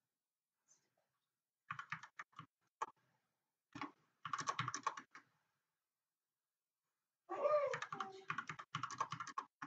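Typing on a computer keyboard in several quick bursts of keystrokes, with short pauses between them.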